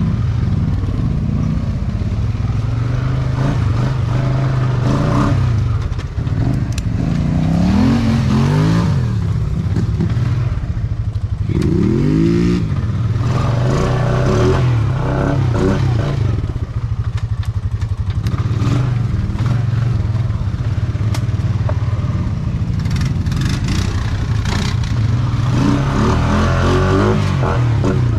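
ATV engine running under load through a mud trail, its throttle blipped in several rising and falling surges, with light rattles and knocks from the machine.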